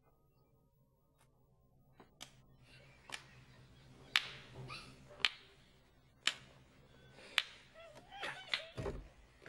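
A run of sharp single cracks, about one a second, over a faint background murmur, with a short wavering pitched sound near the end.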